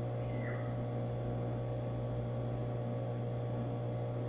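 Steady low electrical mains hum with a fainter buzz above it, unchanging throughout.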